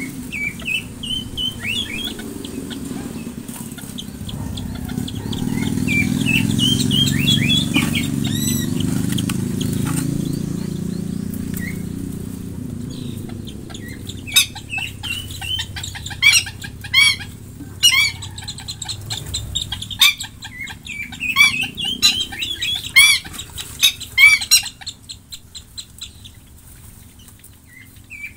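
Aviary birds chirping and calling in short rising-and-falling notes, with a long run of sharp, loud repeated calls about halfway through. In the first half a low rustling noise runs under the calls.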